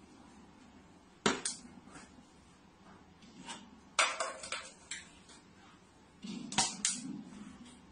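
Sharp clinks of hard objects knocking together, in small groups: two about a second and a half in, three around four seconds, and two more near the end.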